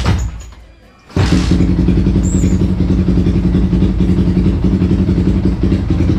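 Yamaha Vixion's single-cylinder four-stroke motorcycle engine running steadily at idle, with engine flush added to the oil. It comes in abruptly about a second in, after a short loud noise at the very start.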